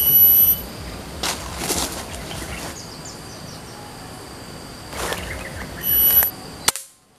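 Outdoor ambience with a steady high insect drone, a short shrill call heard twice (at the start and about six seconds in), and a few brief rustles. A sharp click comes just before the sound cuts off near the end.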